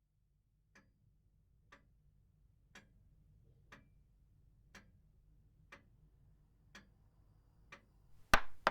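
Clock ticking about once a second, with a faint low hum of room noise beneath. Near the end a sharp knock or click, much louder than the ticks.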